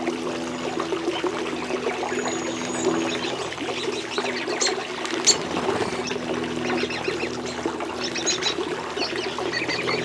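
Small pond waterfall pouring and trickling steadily, with a few short high bird chirps over it and one sharp click about five seconds in.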